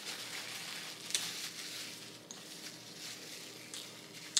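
Paper napkin rustling and crinkling as mouth and hands are wiped, with a few small sharp crackles.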